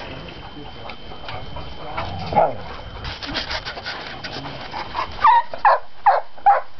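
Rustling and scuffling while a dog plays, then a quick run of about five short, high yips near the end.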